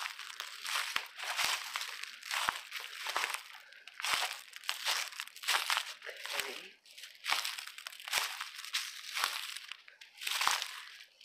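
Footsteps crunching through dry fallen leaves on a woodland floor: a steady walking pace of about one step a second, each step a crackly rustle.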